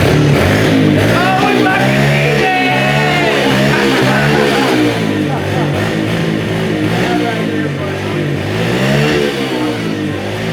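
Background rock music with a sung vocal line.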